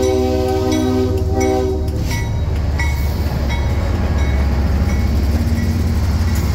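CSX ES44DC diesel locomotive passing close by: its multi-note air horn sounds a chord that cuts off about two seconds in, leaving the heavy low rumble of the engine and the wheels on the rails, with a few sharp clicks of wheels over the track.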